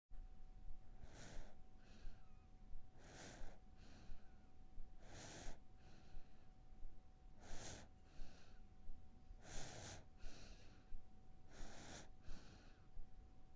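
A sleeping black cat breathing audibly, a louder breath followed by a fainter one about every two seconds.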